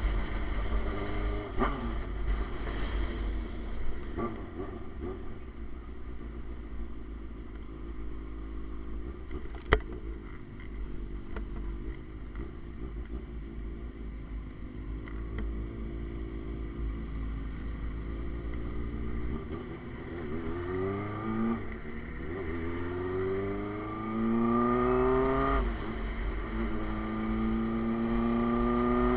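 Suzuki GSX-R sport bike running through an SC Project exhaust, cruising and then accelerating hard through the gears in the last third, its pitch climbing and dropping at each upshift. A single sharp click about ten seconds in.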